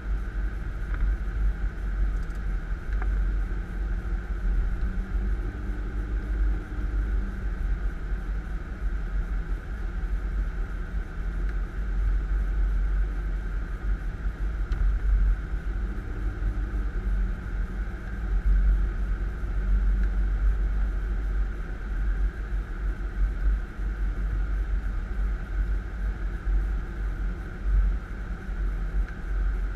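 Storm wind buffeting the microphone, a continuous low gusting rumble that rises and falls irregularly.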